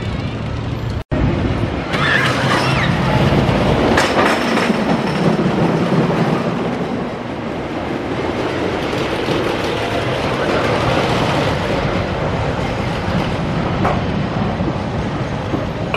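The Tornado, a wooden roller coaster, with its train rumbling and clattering along the wooden track. There is a momentary silent gap about a second in.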